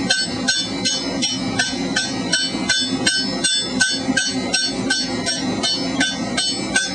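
A blacksmith's hand hammer strikes hot steel pipe held in a conical swage die. It lands a steady run of light, ringing blows, about three a second. The strokes are kept light because hard blows would collapse the thin-walled tubing; the pipe end is being drawn into a long conical rush tip.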